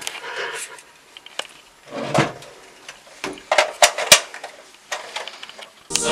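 Scattered knocks, clicks and rustles of objects and the camera being handled close to the microphone, several sharp clicks in a row about two thirds of the way through. Music comes in suddenly at the very end.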